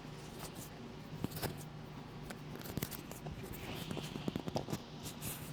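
Quiet handling noise: soft, irregular clicks and rustles over a faint steady low hum, with a brief hiss about four seconds in.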